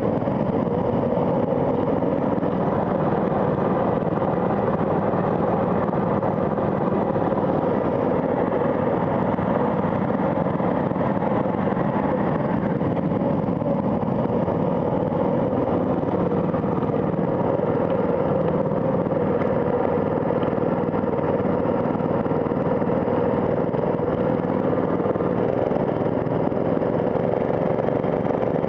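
Go-kart engine idling steadily, a continuous motor note that wavers slightly in pitch without revving up.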